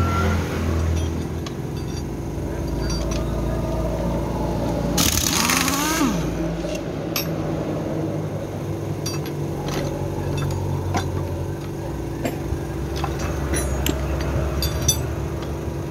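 Metal tools and sockets clinking against each other and the scooter's kick-starter assembly, over a steady mechanical drone. A brief loud whir about five seconds in.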